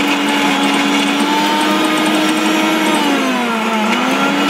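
Electric mixer grinder with a steel jar running, blending nuts and fruit with a steady motor whine. Near the end its pitch sags briefly under the load, then picks back up.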